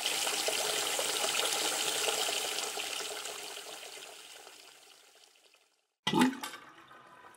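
Running-water sound effect for an animated liquid title. It holds steady for about two and a half seconds, then fades away by about five seconds in. A short separate effect sounds about six seconds in.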